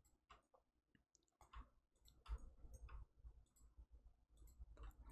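Near silence with scattered faint clicks from a computer mouse and keyboard, as modifier keys are held and the mouse button is clicked.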